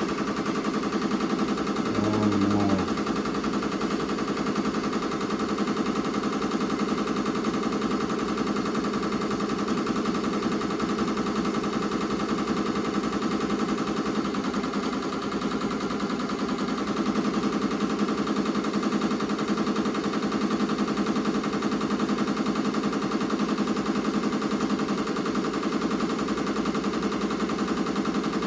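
Ricoma MT-2002-8S multi-needle embroidery machine stitching at speed, a fast, even run of needle strikes that keeps up steadily.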